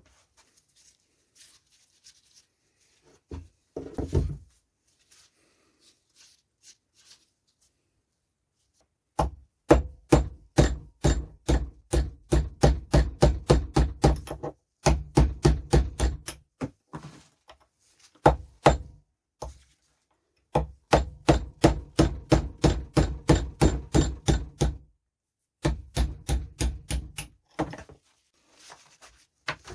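Hammering: rapid, even blows about three to four a second in several long runs with short pauses between, after a few scattered knocks at the start.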